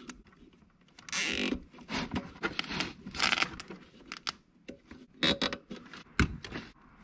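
Rustling and scraping of hands working an LED tube light's cord and plastic fittings under a kayak seat, in short irregular bursts with a few sharp clicks.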